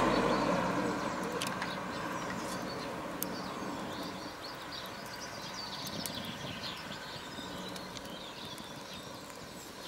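Outdoor ambience: birds chirping over a steady hiss that slowly fades, with a few faint crackles from the small wood fire under the cast-iron pot.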